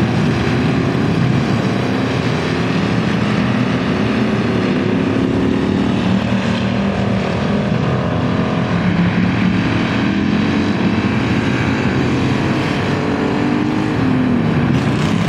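A field of dirt-track stock cars racing, several engines running loud at once and overlapping. Their pitch rises and falls as the cars lap the oval.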